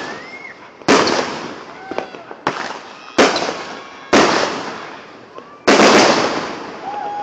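Consumer fireworks going off: five sharp bangs over a few seconds, four loud and one smaller, each trailing off in a long fading rumble.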